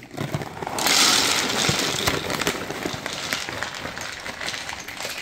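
8 mm fishing pellets poured from a bag into a bait boat's plastic hopper, a dense rattling rush of many small pellet impacts. It starts about a second in, loudest at first, and slowly tails off as the pour thins.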